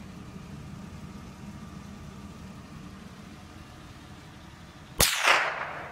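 A Pontiac minivan's engine idling steadily, then, about five seconds in, a single loud gunshot that rings out briefly across the field.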